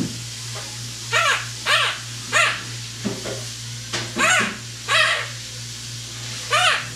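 A string of short 'ruff' barks, about six in seven seconds, each rising and falling in pitch.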